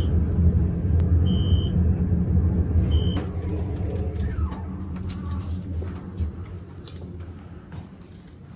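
Low rumble of a large vehicle fading steadily as it moves away, with short electronic beeps about a second and three seconds in.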